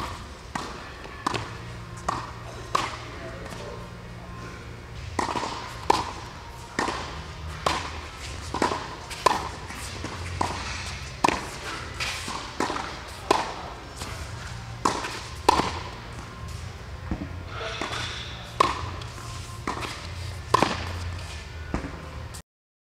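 Tennis ball struck by rackets in a quick volley exchange: sharp pops about once a second. The sound cuts off abruptly near the end.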